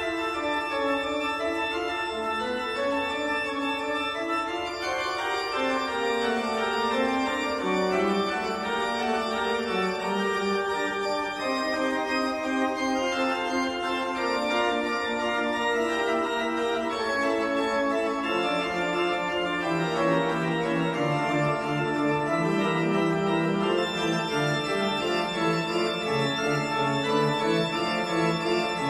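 Background music played on an organ: sustained chords and a melody moving in steps, with the bass line shifting lower about two-thirds of the way through.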